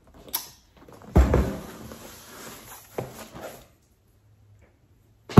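A large cardboard box set down on a countertop with a heavy thump about a second in, then cardboard scraping and shuffling against the counter, with a sharp tap about three seconds in.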